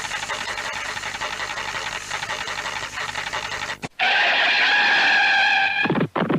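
A rough, rattling noise effect for about four seconds, which cuts off suddenly into a loud held chord of steady tones, then quick repeated strokes near the end.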